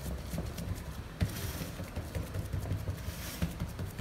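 Hands pressing and patting coarse semolina dough flat into a large round baking tray: soft scattered pats and rubbing scrapes over a low background rumble.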